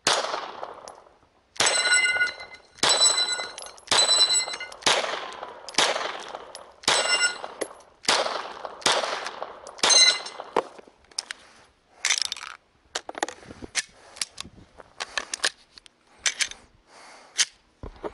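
Walther Creed 9mm pistol firing about ten shots at a steady pace of roughly one a second. Several shots are followed by the ringing clang of steel target plates being hit. After that come fainter, scattered sharp clanks and pops.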